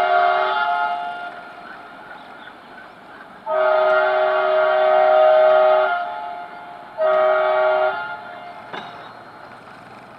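ALCO WDG-3A diesel locomotive's air horn sounding a chord of several tones in three blasts: one that ends about a second in, a long one of about two and a half seconds, and a short one near the end.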